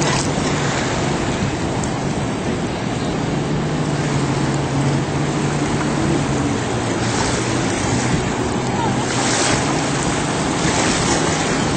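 Jet ski engines droning steadily, with the wash of surf and wind noise on the microphone; a couple of brief louder rushes of water or wind about seven and nine seconds in.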